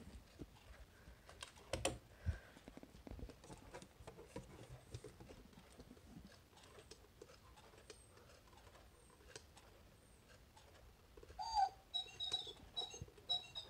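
Faint clicking and rubbing as the hands of a quartz bird wall clock are turned by hand. About eleven seconds in, a string of short, high recorded birdsong chirps plays from the clock.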